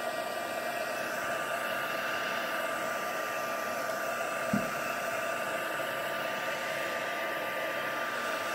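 Craft heat gun blowing steadily: an even whir of rushing air with a thin, steady high whine. A soft knock sounds about halfway through.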